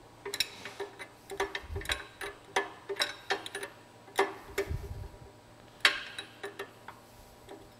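Hand ratchet wrench clicking in short uneven runs as it backs the nut off the bottom of a car-wash side-brush motor shaft, the shaft held by a pipe wrench, with a couple of dull knocks from the tools.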